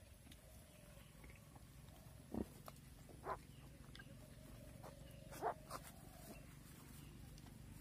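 Pigs at farrowing, a black sow and her newborn piglets, giving four short calls between about two and six seconds in, over a faint wavering high hum.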